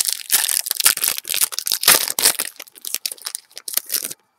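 Foil wrapper of a baseball card pack crinkling and tearing as it is handled and ripped open: a dense crackle that stops shortly before the end.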